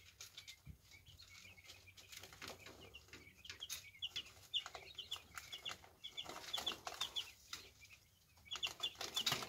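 Brood of day-old quail chicks peeping: from a few seconds in, short high chirps repeat rapidly. Under them are faint scratchy taps of feet and beaks on the paper bedding.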